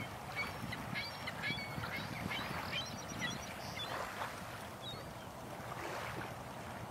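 Small waves lapping and washing over pebbles at the water's edge, with a quick run of short, high bird chirps during the first half.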